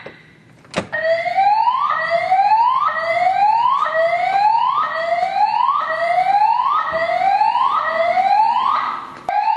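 EST voice-evacuation fire alarm sounding its whoop evacuation tone: repeated rising sweeps about once a second, starting after a click about a second in. There is a brief break near the end before the sweeps resume.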